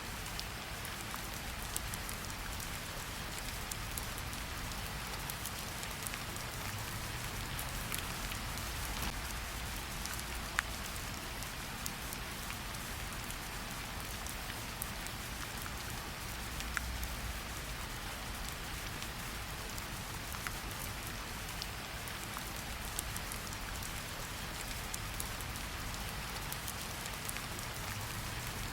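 Steady rain falling in a forest: an even hiss of rainfall with many individual drops ticking close by.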